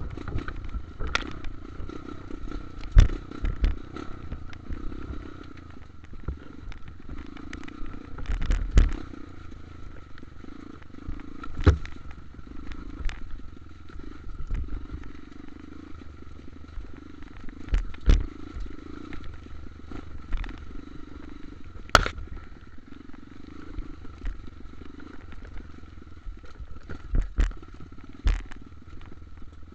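Dirt bike engine running at a fairly steady, low pace while riding a rough, muddy trail, with sharp knocks and clatter every few seconds as the bike jolts over bumps.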